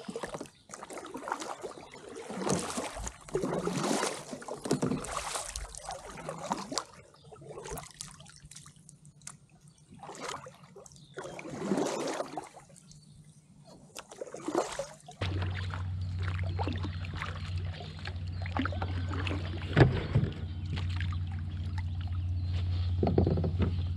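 Kayak paddle strokes splashing and dripping in the water, about one surge a second. About fifteen seconds in, a steady low hum starts under the strokes, and there is a sharp knock near the twenty-second mark.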